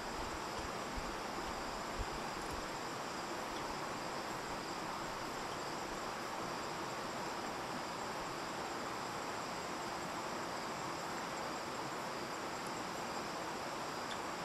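Steady outdoor insect chorus, crickets trilling high over an even hiss, with a few soft low bumps in the first two seconds.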